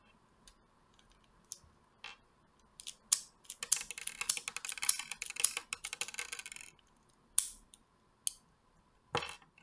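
Plastic packaging being handled and opened: scattered sharp clicks, then about three seconds of dense crinkling and crackling, followed by a few more single clicks near the end.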